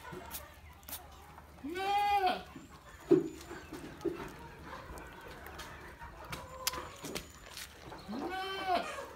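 Goat kid bleating: two short bleats, each rising then falling in pitch, about two seconds in and again near the end. A sharp knock about three seconds in.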